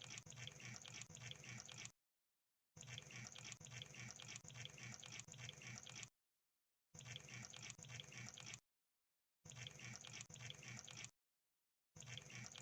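Crab sound effect: a crackling patter of clicks with louder pulses a few times a second, in stretches of one to three seconds cut by moments of dead silence.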